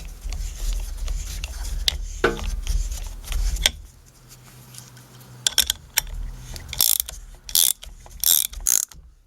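A bolt being turned with a wrench into a drilled hole in a poplar dowel: a dense rattle of small clicks for the first three and a half seconds, then separate sharp clicks about every half second.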